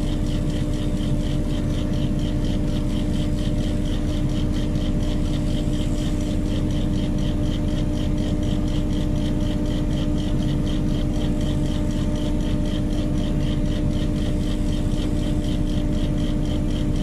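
Heavy mobile crane's diesel engine running steadily during a lift, a loud even drone with a constant hum.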